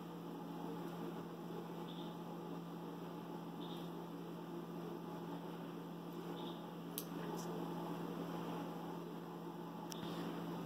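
A steady low hum over quiet room noise, with a faint sharp click about seven seconds in and another near the end.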